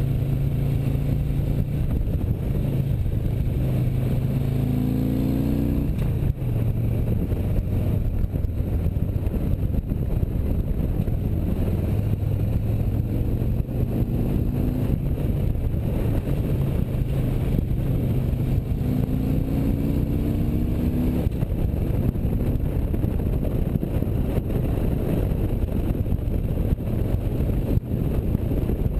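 Motorcycle engine running under steady wind rush on the microphone, its pitch climbing three times as it accelerates and each time dropping abruptly as the throttle eases or a gear changes.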